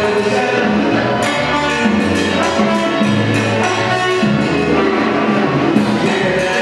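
Live band playing at rehearsal: congas, drum kit, guitar, keyboard and saxophone, going on steadily through amplifiers with a repeating bass figure.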